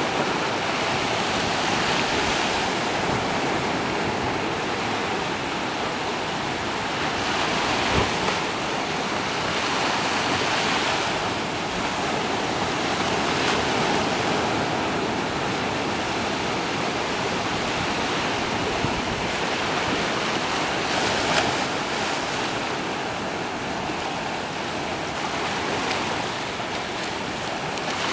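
Small waves washing in and draining back over a sandy, rocky shoreline, swelling and easing every few seconds, with some wind. Two brief knocks, one about eight seconds in and one near twenty-one seconds.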